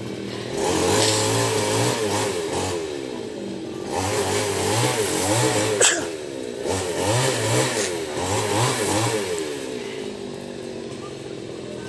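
Newwest Professional 588 two-stroke chainsaw revving in several bursts, its pitch rising and falling, with a sharp click just before the sixth second.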